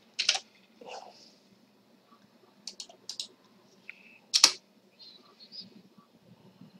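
Computer keyboard keystrokes and mouse clicks: a few separate sharp clicks, with a louder keystroke about four and a half seconds in, the Enter that runs the wget download command.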